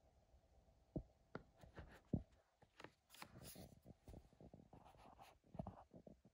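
Faint handling noise: a few soft clicks in the first couple of seconds, then scratchy rubbing and small taps as fingers move over the steel bits and plastic bit holder of a Wera Tool-Check Plus set.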